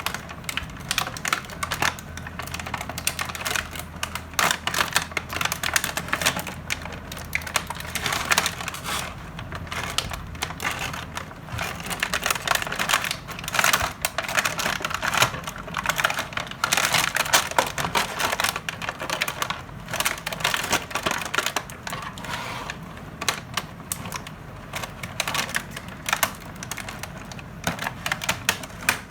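Continuous crackling and clicking of a toy's packaging being handled and opened by hand.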